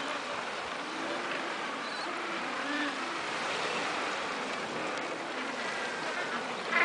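Small waves washing steadily onto a pebble beach.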